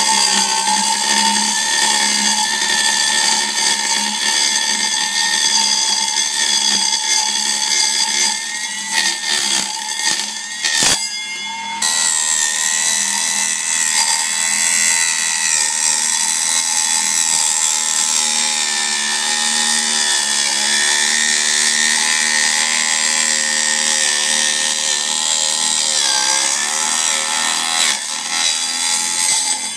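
Homemade table saw driven by a Turnigy brushless RC motor with a small Proxxon blade, running at speed and cutting aluminium: a steady whine with a harsh metal-cutting screech. It first cuts 2 mm aluminium sheet, then after a short break about eleven seconds in it cuts 10 mm square aluminium bar.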